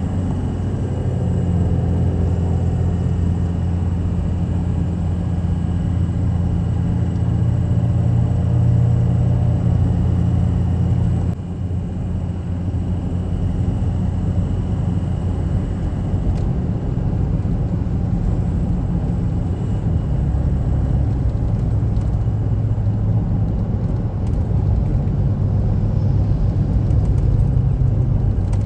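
A car driving, its engine and road noise making a steady low rumble. The drone changes abruptly about eleven seconds in and shifts again near the end.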